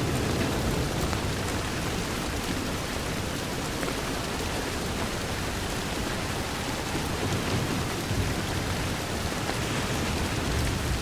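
Steady heavy rain pattering on a window, an even, unbroken hiss, with a low rumble of distant thunder fading out in the first second.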